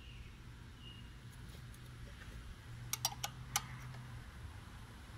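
A few sharp metallic clicks about three seconds in, as an open-end wrench is fitted onto the rocker arm adjusting nut of a Briggs & Stratton engine during valve lash setting, over a faint steady low hum.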